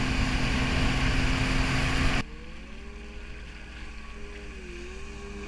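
Jet ski engine running close by with a rush of wind and water noise. About two seconds in the sound cuts to a quieter scene, where a more distant jet ski's engine note rises and falls as it turns.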